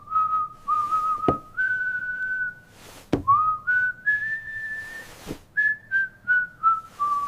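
A person whistling a slow tune in held notes that step up and down, with a sharp knock three times.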